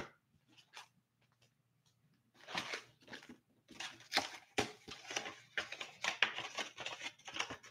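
Foil-wrapped hockey card packs crinkling as they are handled: quiet, short, irregular crackles that start about two seconds in.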